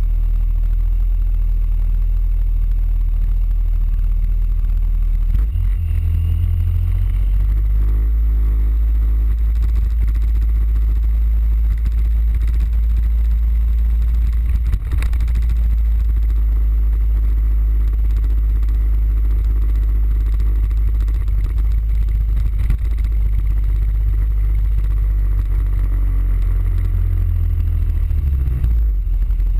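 Suzuki Burgman 650 scooter's parallel-twin engine running under a heavy low rumble. It idles at first, then pulls away about five or six seconds in and runs on at road speed.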